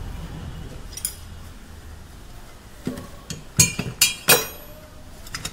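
Steel hand tools clinking: a ring spanner with a pipe extension is taken off a freshly tightened alternator pulley nut and handled on the bench. There is a single click about a second in, then a quick run of sharp metallic clinks, the loudest just past the middle.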